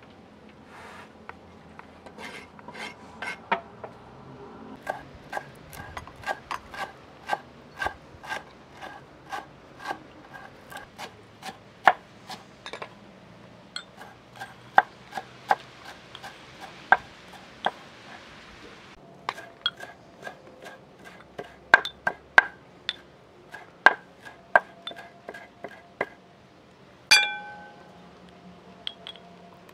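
Kitchen knife chopping fresh herbs on a wooden board: a steady run of sharp knocks, about two a second, each with a faint metallic ring. Partway through there is a stretch of soft hiss, and near the end a single louder ringing clink of dishware.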